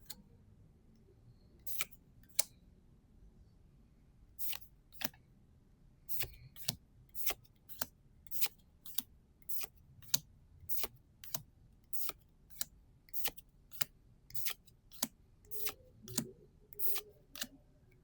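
Trading cards being handled, making a series of crisp clicks: a few scattered ones at first, then about two a second, evenly spaced, from about six seconds in.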